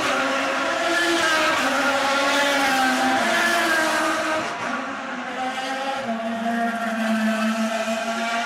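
Several IndyCar race cars' Honda 3.5-litre V8 engines running at high revs as they go by on the circuit, their pitches wavering up and down and overlapping. Louder in the first half, easing off about halfway, with one car's lower, steady note standing out near the end.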